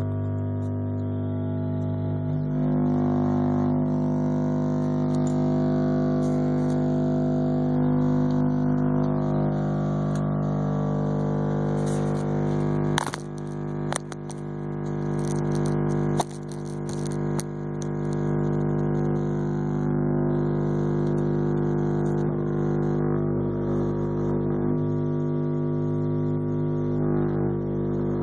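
Car-audio subwoofer driven by an amplifier with a low bass test tone, about 50 Hz: a loud, steady drone with many overtones. A few sharp clicks about 13 to 16 seconds in.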